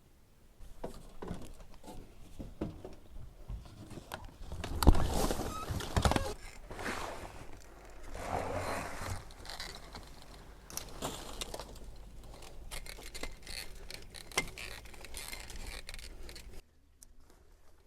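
Handling noise: an irregular run of scrapes, clicks and knocks, with two loud knocks about five and six seconds in; it cuts off suddenly near the end.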